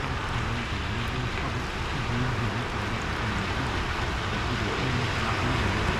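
Steady low rumble and hiss of road traffic.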